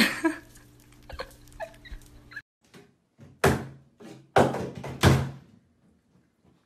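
Three loud thuds in quick succession, starting about halfway in, from a small dog's front paws banging against the side of a bathtub.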